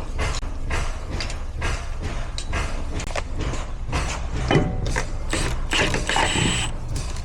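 Vehicle rolling with a steady low rumble and fast irregular clicking. About five and a half seconds in, a brief high-pitched squeal from the rear brake sounds for about a second.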